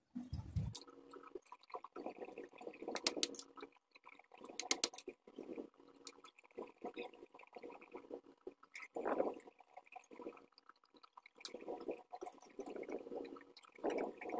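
Hands handling a disassembled vacuum cleaner motor and its small parts: irregular clicks, taps and scrapes of metal and plastic pieces being turned over and set down.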